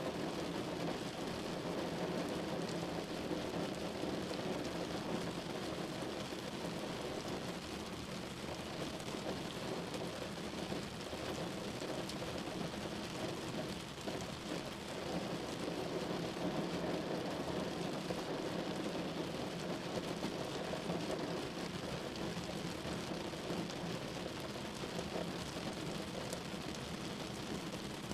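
Steady rain falling on a window glass, an even, unbroken patter with no separate drops or claps standing out.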